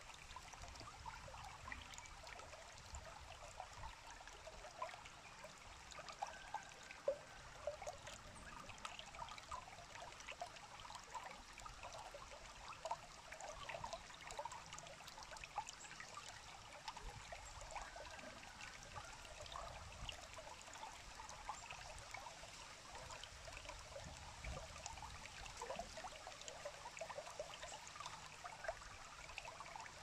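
Shallow stream running over gravel and weed: a faint, steady babble of many small trickles and splashes.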